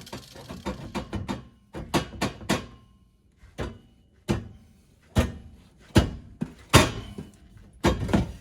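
About a dozen sharp knocks at uneven intervals, loudest in the second half, as a car exhaust pipe is banged into place on its fitting.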